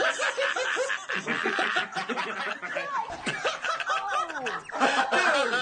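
A small group of men laughing together: overlapping snickers and chuckles from several voices in quick, choppy bursts, with a few higher rising and falling laughs.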